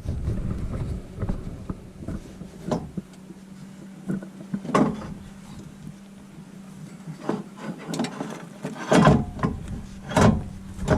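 Scattered knocks and clinks of hand tools and metal parts as the winch's mounting bolts are fitted and tightened, with a cluster of louder knocks near the end, over a faint steady hum.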